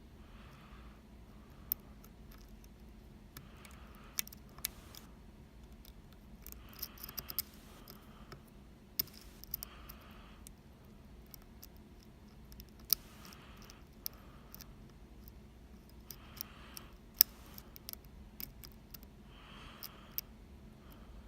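Lock picks working inside a Keso 10 RS Omega high-security lock: small, sharp metallic clicks and taps at uneven intervals, with soft scraping in between.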